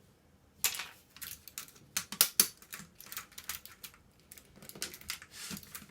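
Irregular plastic clicks and rattles from a 1990s computer keyboard being handled and taken apart, its keys and plastic parts clattering. The loudest clicks come a little under a second in and around two seconds in.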